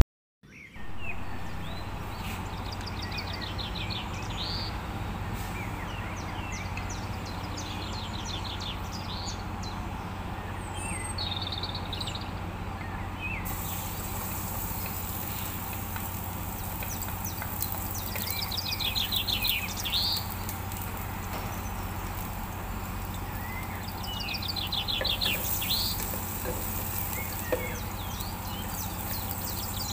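Birds chirping in short trills every few seconds over a steady low hum. About halfway through, a soft sizzle sets in as chopped garlic goes into hot oil in a stainless pot.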